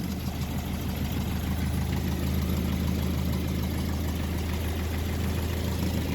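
1961 Land Rover Series II's 2.25-litre four-cylinder petrol engine idling steadily on full choke, freshly started from cold.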